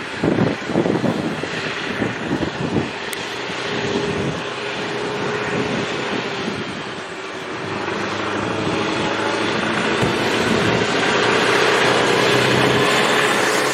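Diesel engine of a rail track maintenance machine running steadily as it approaches and passes beneath, growing louder through the second half. Wind buffets the microphone in the first few seconds.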